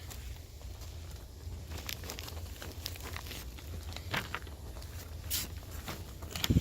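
Irregular crinkling, scuffing and clicking, with a few sharper knocks in the second half, over a steady low hum.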